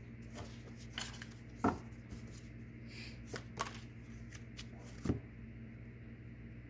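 Tarot cards being handled and laid out on a table: a scattering of soft taps and card flicks, with two louder taps, one just under two seconds in and one about five seconds in.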